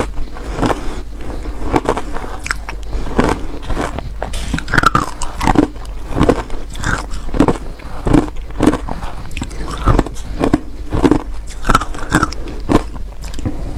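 A person biting and chewing powdery shaved ice, a steady run of crisp crunches and clicks about twice a second. The audio is played slightly sped up.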